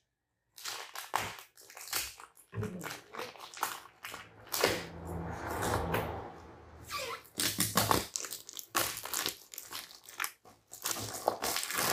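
Packaging being handled during an unboxing: crinkling and rustling with scattered clicks and knocks, busiest in the middle.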